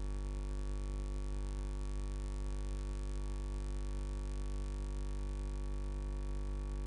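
Steady electrical mains hum, a low 50 Hz drone with a ladder of overtones, running unchanged with no other sound over it.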